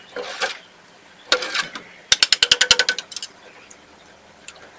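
Clatter of a wire mesh strainer worked in a pot of soup: two brief scrapes, then a fast run of about ten sharp clicks.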